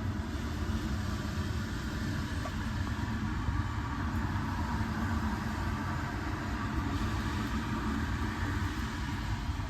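Glacier Bay toilet refilling after a flush: a steady rush and hiss of water from the tank's fill valve.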